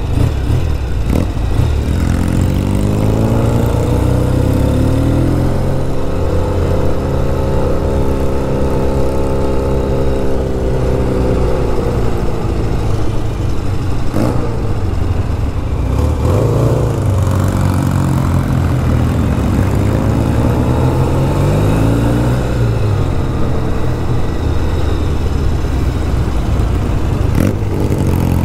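Motorcycle engine under way, its pitch climbing as it accelerates, holding steady for several seconds, then dropping, and climbing and falling again several more times as the bike speeds up and slows, over a heavy low rumble.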